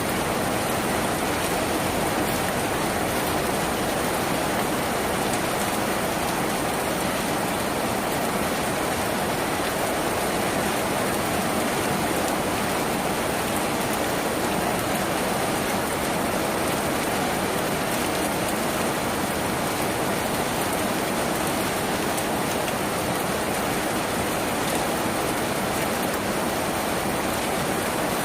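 Steady rain falling on a tin roof: an even, unbroken patter that does not change.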